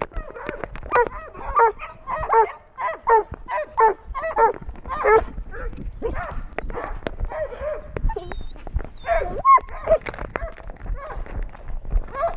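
Six-month-old Doberman pinscher puppy whining and yipping close to the microphone, in short pitched calls about twice a second for the first five seconds, then looser whimpers mixed with sharp clicks.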